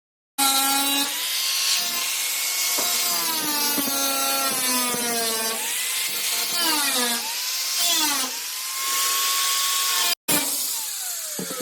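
Power tool cutting and grinding the sheet-metal hood, its whine rising and falling repeatedly as it is loaded and eased off, and winding down near the end.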